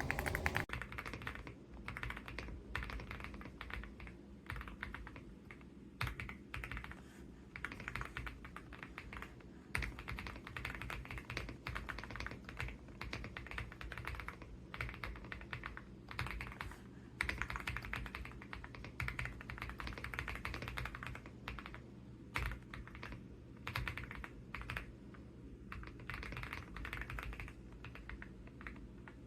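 AULA F75 Pro mechanical keyboard with pre-lubed Reaper switches being typed on: continuous runs of quick keystrokes with brief pauses.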